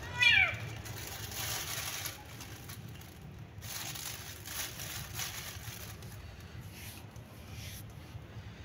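A cat gives one short, loud meow that rises and falls in pitch right at the start. Then a thin plastic bag crinkles and rustles in several bursts as the cat noses into it to eat fish.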